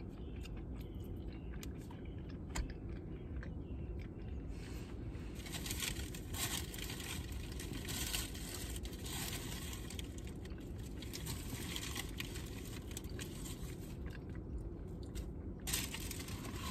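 Paper bags and cardboard food boxes rustling and crinkling as fried food is rummaged through and handled, with scattered small clicks and knocks. The rustling is densest in the middle stretch, over a steady low rumble.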